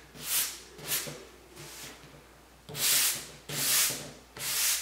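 Sanding sponge and cloth rubbing over a chalk-painted cabinet door in about six short scratchy strokes, the louder ones in the second half: the paint is being distressed back on the edges and corners.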